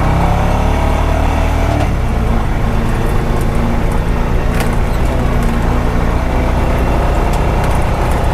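Honda Pioneer 520 side-by-side's single-cylinder engine running steadily under way, its note shifting about two seconds in, with a sharp knock about four and a half seconds in.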